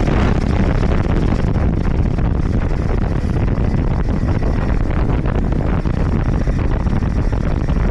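Wind rushing and buffeting against the microphone of a camera on a moving motorcycle, a steady low rumble of wind and road noise.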